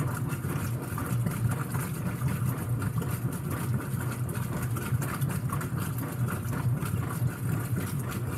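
Whirlpool WTW5300SQ0 direct-drive top-load washing machine running through its wash cycle, a steady, fairly quiet low motor hum.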